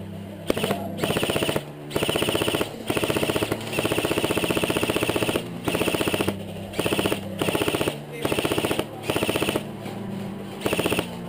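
Airsoft M4-style rifle firing on full auto: about a dozen rapid clattering bursts, each half a second to a second and a half long, with short pauses between them and a high whine during each burst.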